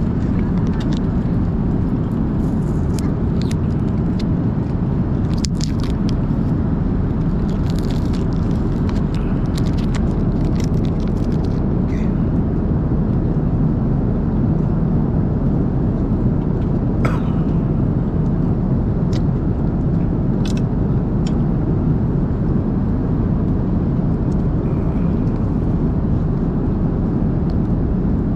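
Steady low roar of a jet airliner's cabin in flight. Scattered small clicks and crinkles come from food being handled and eaten.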